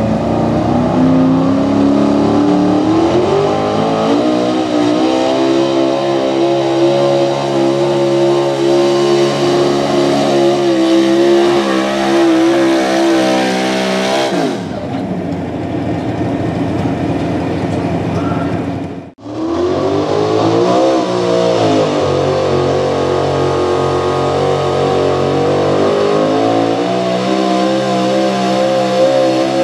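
Gas-engined 4x4 pulling trucks at full throttle dragging a weight-transfer sled. The engine's revs climb over the first few seconds and are then held high. A little past the middle the sound cuts out for an instant, then another truck's engine comes in, rises and holds, and steps up again near the end.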